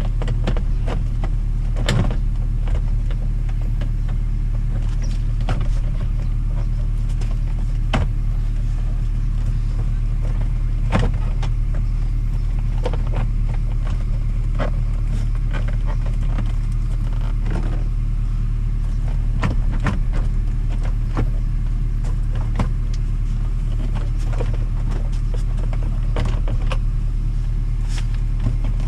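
Scattered clicks, taps and knocks of plastic door trim being handled and fitted to a car door, over a steady low mechanical hum.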